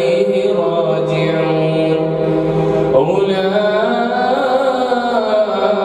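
A man's voice reciting the Quran in the slow, melodic style of an imam leading prayer, drawing out long held notes and shifting pitch about three seconds in.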